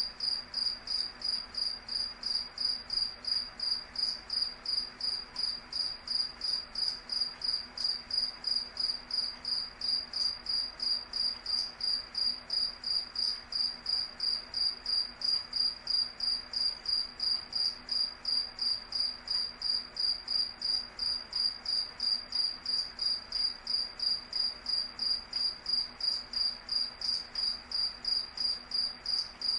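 A cricket chirping steadily, one high, clear pitch repeating evenly at about three chirps a second.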